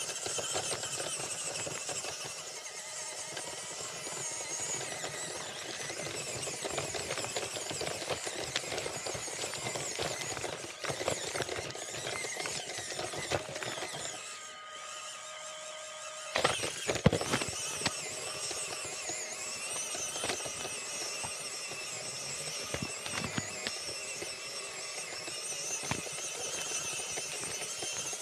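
High-pitched whine of a small RC crawler's electric motor and gears, wavering in pitch as the throttle changes, with a short break and a few clicks about sixteen seconds in.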